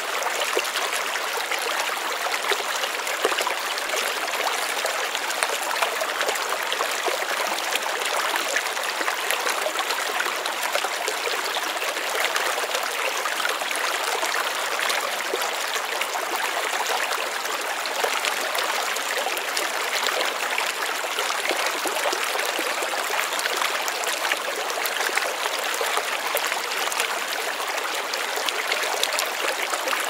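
Shallow stream flowing steadily over rocks and stones, its water trickling and splashing without pause.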